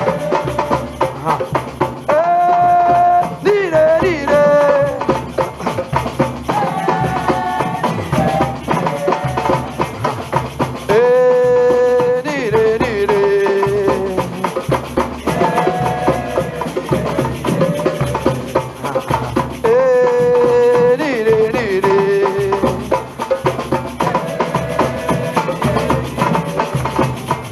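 Batucada percussion: drums and shakers playing a dense, steady rhythm, with a voice singing long held phrases over it that come round about every nine seconds.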